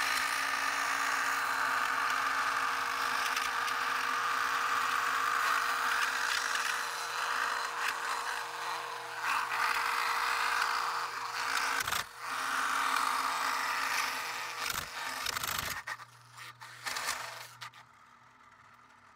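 LEGO table saw driven by a half-horsepower motor, running steadily while its blade scrapes through a thick sheet of plastic folder. The sound dies away about sixteen seconds in.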